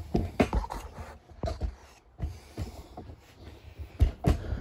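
Handling noise as the phone camera is grabbed and moved: a hoodie sleeve rubs and bumps against the microphone, giving a string of irregular knocks and scuffs, with a sharper pair of knocks near the end.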